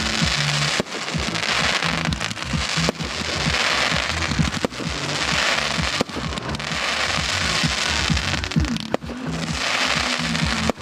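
Fireworks display: about five sharp bangs and repeated swelling waves of crackling hiss from bursting shells, with music playing underneath.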